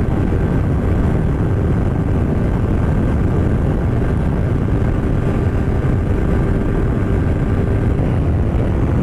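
Yamaha MT-03's parallel-twin engine with a Paolucci aftermarket exhaust running steadily at high cruising speed, mixed with heavy wind rush on the microphone. The pitch holds level without rising or falling.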